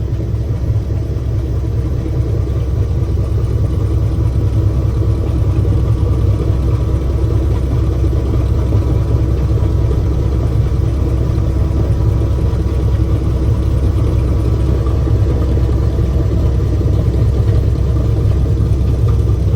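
Combine harvester's engine running steadily under load with the unloading auger turning, emptying the last soybeans from the grain tank: a loud, even drone with several steady tones.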